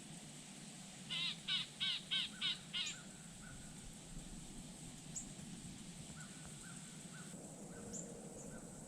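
A crow cawing six times in a quick, even series, then falling silent while small birds chirp faintly.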